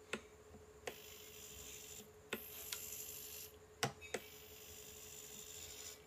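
Hitec HS-311 standard hobby servo turning a webcam in three short runs of high whirring gear whine, with sharp clicks as it starts and stops. A faint steady hum runs underneath.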